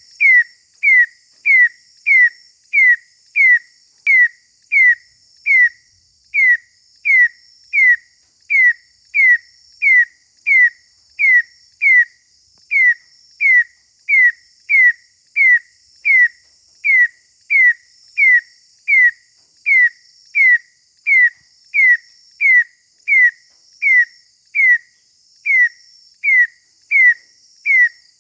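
A loud, whistle-like note near 2 kHz, bending in pitch, repeated evenly about one and a half times a second, over a fainter layer of quick high-pitched chirps. The calls are taken by the uploader for katydids (bush crickets) calling at night.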